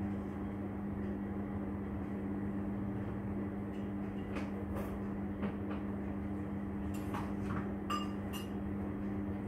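A steady mechanical hum over a low rumble, with a few faint clicks or taps in the second half.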